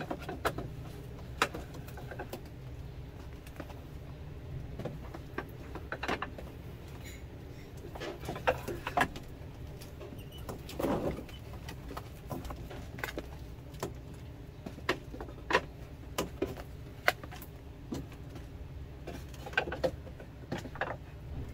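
Plastic food trays being slid into the slots of a wooden rack and set down, giving irregular knocks, taps and scrapes of plastic on wood. A steady low hum runs underneath.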